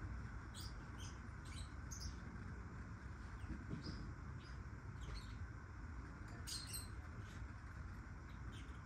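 Black-winged lovebirds (Agapornis taranta) giving a dozen or so short, high chirps at irregular intervals, over a steady low background rumble.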